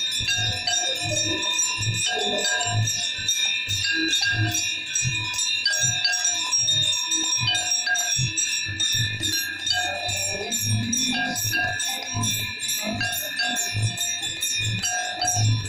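Many brass hand bells ringing rapidly and continuously during the Ganga Aarti, over a regular low beat about twice a second.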